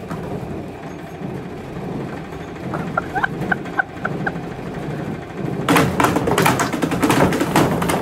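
Scrap washing machine with its drum assembly exposed on top, spinning fast with a steady mechanical hum. From about two seconds before the end it bangs and clatters hard as the unbalanced spinning assembly shakes loose and starts breaking apart.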